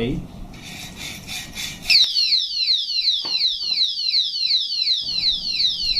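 An alarm padlock's built-in siren goes off about two seconds in and keeps sounding: a loud, rapid series of falling electronic whoops, about five a second. Before it comes a short stretch of rhythmic rasping, a saw working on the lock, and this tampering is what sets the alarm off.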